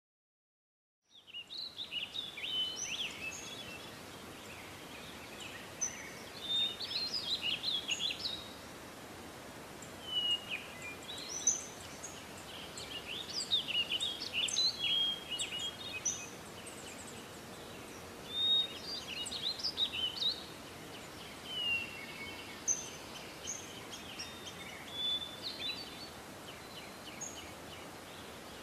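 Several small birds chirping and singing in short bursts of trills and chirps over a steady outdoor background hiss, starting about a second in.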